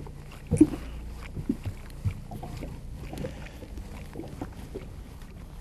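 Background sound aboard a small boat at sea: a low steady hum with a few short soft knocks, the loudest about half a second in.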